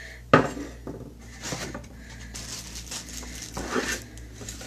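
A small warmer being unpacked from its cardboard box: a sharp knock just after the start, then rustling and scraping of the wrapping and cardboard as it is pulled out.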